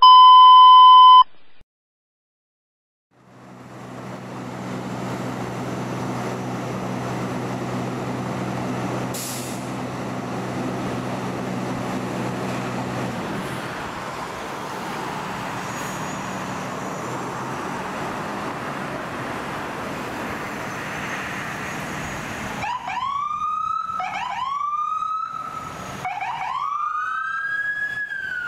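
A loud one-second electronic beep, then a low engine hum and traffic noise. About three quarters of the way through, an ambulance's electronic siren starts in quick rising-and-falling cycles, then goes into a long, slow wail as the 2022 Ford ambulance pulls out.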